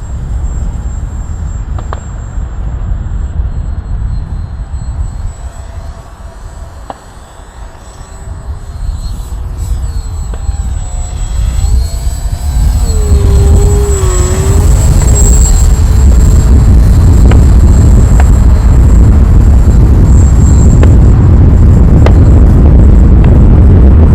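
Heavy wind buffeting the microphone, growing much louder about halfway through. Under it, the thin whine of an electric RC airplane's brushless motor and propeller rises and falls in pitch as the plane manoeuvres.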